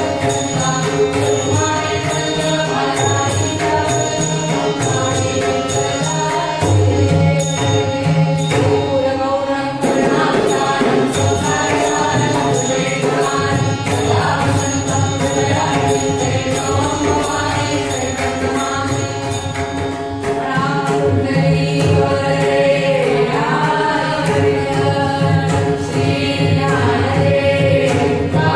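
Group of voices singing a Marathi devotional bhajan to a harmonium's held chords and a tabla, with small hand cymbals clinking on a steady beat.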